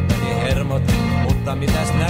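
Instrumental passage of a rock song: a band with a steady drum beat and guitar, no singing.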